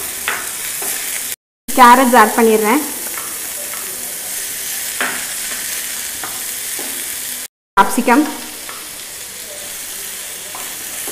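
Vegetables stir-frying in hot oil in a non-stick pan: a steady sizzle with a wooden spatula scraping and stirring through it. Short loud squeaks come about two seconds in and again about eight seconds in, and the sound drops out briefly twice.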